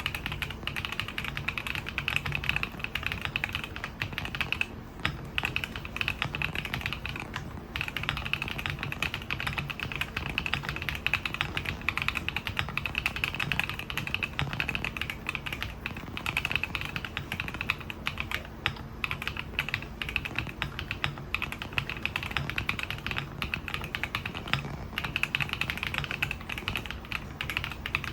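Continuous typing on a MonsGeek M3 full-aluminium gasket-mount mechanical keyboard with Haimu Mint Lemon switches and dye-sublimated PBT keycaps, stock and unmodded: a dense stream of keystrokes with two short pauses, about five and eight seconds in.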